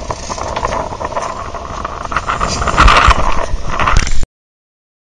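Rough, steady noise of wind and a boat on open water against the microphone, with a few loud knocks about three seconds in and again just before the sound cuts off abruptly into silence about four seconds in.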